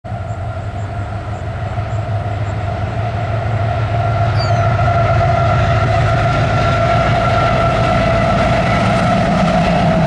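CSX freight train's diesel locomotives approaching: a low engine rumble with a steady whine above it, growing louder over the first few seconds and then holding steady as the locomotives pass.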